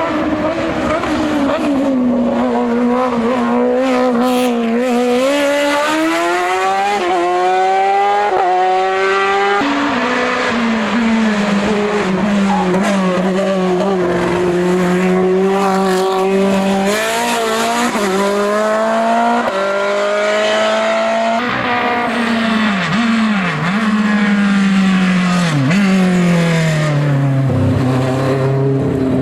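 Hill-climb race car engine under hard acceleration up the course, its pitch climbing and then dropping at each gear change. About two thirds of the way through, the revs fall sharply several times with short throttle blips as it brakes and downshifts.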